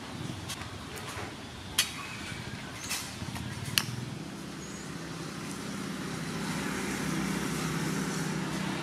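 Vegetable soup boiling in an aluminium pot, a steady low bubbling rumble that grows a little louder in the second half as a metal ladle stirs it. A few sharp clinks of the ladle against the pot come in the first half.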